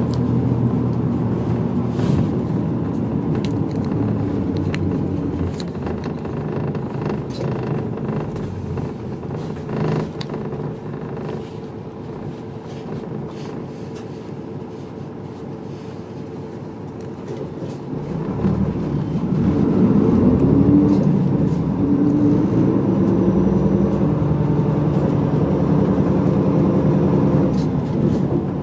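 Medium-size route bus running, heard from inside the cabin, with light rattles and clicks throughout. The engine drone eases off and quietens for several seconds past the middle. About two-thirds of the way through, the engine note rises in pitch and grows louder as the bus accelerates, then runs steady.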